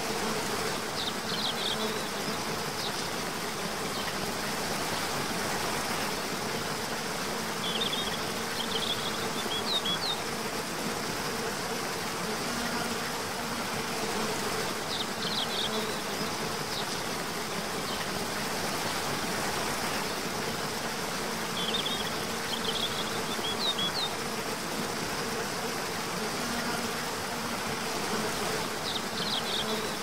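Cascading waterfall's steady rush of water, with a low steady buzz and short clusters of high chirps that come back about every seven seconds.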